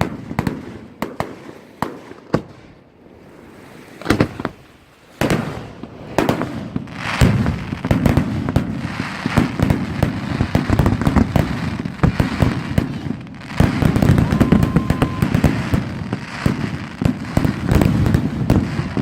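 Fireworks going off: a few separate bangs at first, then from about five seconds in a dense, continuous run of bangs and crackling.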